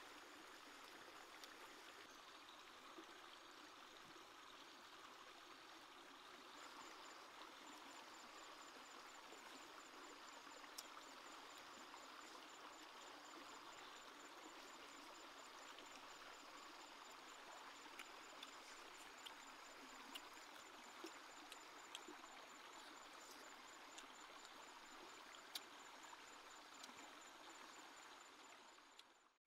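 Faint, steady burble of a shallow stream running over rocks, with a thin, high, rapidly pulsing tone above it and a few soft clicks. It cuts off abruptly at the very end.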